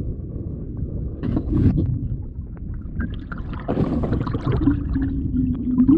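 Muffled water sloshing and gurgling around a camera held under the surface, a dense low rumble throughout. Splashy bursts come about a second in and again around four seconds in, and a steady low hum sets in near the end.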